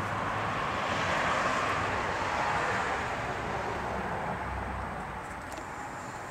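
Rushing noise of a passing vehicle, swelling over the first couple of seconds and then slowly fading away.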